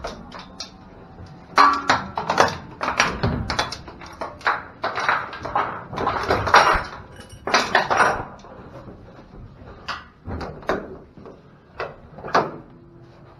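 Internal gate of a metal livestock trailer being swung and latched, giving a run of metal clanks and rattles that thins out to a few single knocks near the end.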